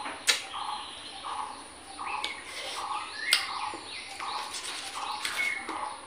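A bird calling over and over in an even rhythm, a little more than once a second, with a few higher falling chirps. A few sharp crunching clicks, the loudest about a third of a second in and just after three seconds, come from crisp fruit being chewed.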